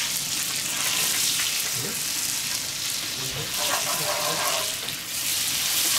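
Butter sizzling steadily as it melts into hot sugar caramel in a cast-iron skillet, stirred with a wooden spoon.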